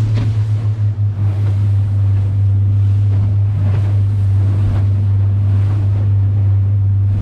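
Small fishing boat's engine running with a steady low drone under way through choppy sea, with wind and splashing spray and waves against the hull.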